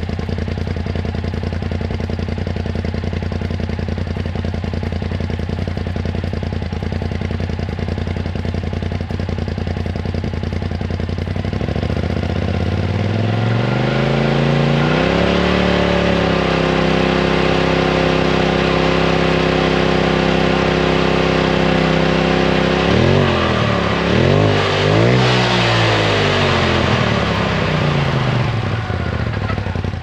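Polaris RZR Turbo's turbocharged twin-cylinder engine running through a Trinity Racing Stage 5 dual exhaust with both quiet cores fitted, metered at about 93–95 dB. It idles steadily, is revved up about twelve seconds in and held at a steady higher speed, gets two quick blips of the throttle, then drops back to idle.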